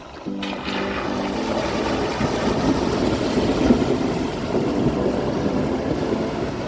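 Toyota LandCruiser 300 Series fording a river: water rushing and splashing against the vehicle. It starts suddenly about half a second in and is loudest in the middle.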